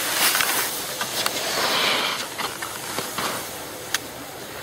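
Skis hissing and scraping across snow as a skier slides down and slows, the scrape swelling about two seconds in, with a couple of light clicks.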